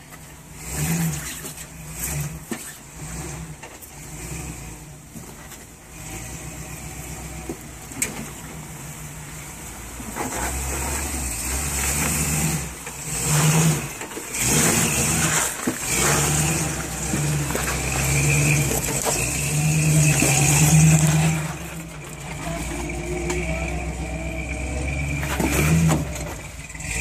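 Early Ford Bronco's engine running at low speed as it crawls over rocks, swelling up in repeated bursts of throttle and easing back between them.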